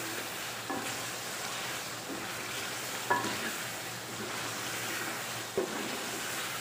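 Chicken in a spiced tomato masala sizzling in hot oil in a metal pot while being stirred and fried down with a spatula, with a few short knocks of the spatula against the pot. This is the bhuna stage, frying the masala until the oil separates.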